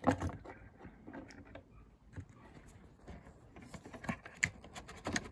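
Light, irregular clicks and rattles of small metal tools being handled: tri-wing security screwdriver bits being picked out and fitted to a driver, with a sharper click at the very start.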